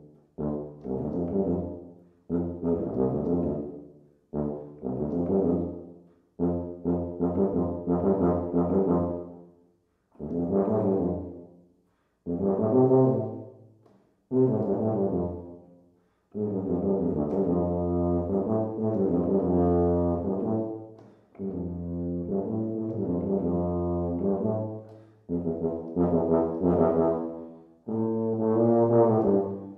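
Unaccompanied tuba playing a solo piece. It plays short phrases that each die away into a brief rest, then a longer unbroken passage from about sixteen seconds in, and short phrases again near the end.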